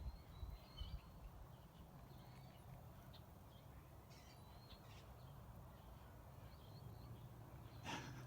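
Near silence outdoors, with faint bird chirps now and then over a low hum, and a single brief click near the end.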